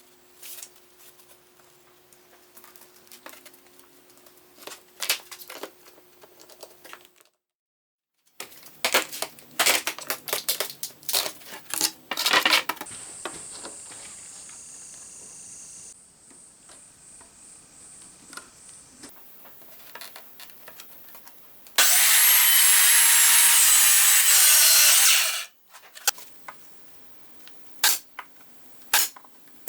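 Wooden knocks and clicks of workshop handling, then a loud power tool running steadily with a high whine for about three and a half seconds and cutting off, followed by more light knocks.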